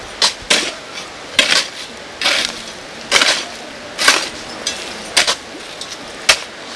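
A metal hand tool scraping and knocking against earth or stone in repeated strokes, about one a second, with a few sharp clinks between them, as work is done at a grave.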